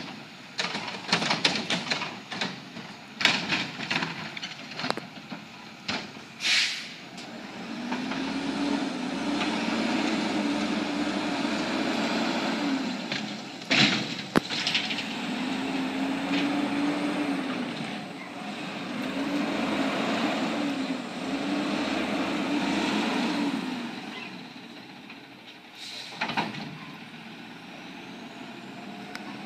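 Garbage truck working at the curb: a clatter of knocks and clanks, a short air-brake hiss, then its engine revving up and down four times to drive the hydraulics, with a sharp bang about halfway through as a cart is emptied into the hopper.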